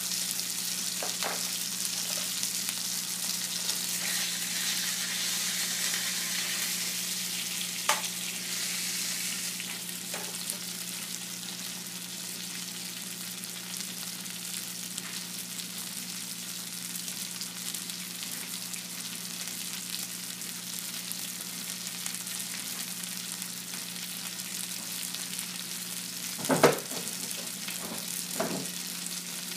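Food sizzling in a hot frying pan, a steady hiss that eases slightly after the first several seconds, over a low steady hum. A few light clicks, and a couple of sharp knocks near the end.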